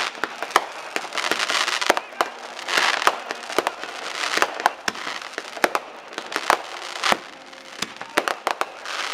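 A backyard fireworks display going off: an irregular run of sharp bangs and cracks, several to the second at times, with stretches of crackling hiss between them.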